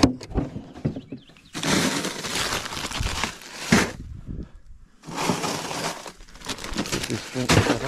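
Bagged ice cubes poured into a plastic cooler, clattering in two long pours.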